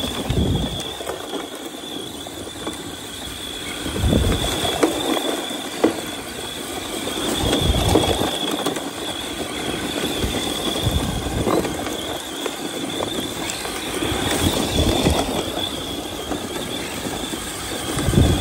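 Arrma Mojave 4S radio-controlled short-course truck driving and sliding through loose sand: a steady high-pitched whine over a gritty rushing noise, which swells several times.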